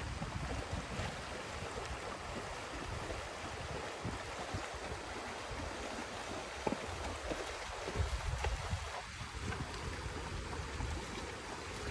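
Shallow river water running over rocks, with a horse splashing as it wades through at a walk. Wind buffets the microphone in low gusts throughout.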